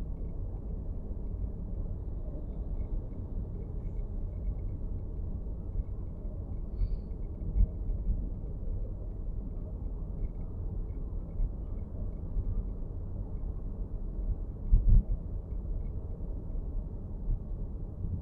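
Low road rumble inside a moving Nissan X-Trail e-POWER's cabin, with faint small ticks coming and going: the abnormal dashboard rattle. Two heavier low thumps, about halfway through and again near the end, as from bumps in the road.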